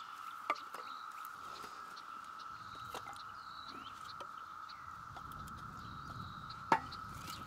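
Split firewood logs knocking together, two sharp knocks: one as a log is tossed, and one near the end as a log is laid on the stack in a steel fire ring. Under them are a steady high-pitched drone and birds chirping.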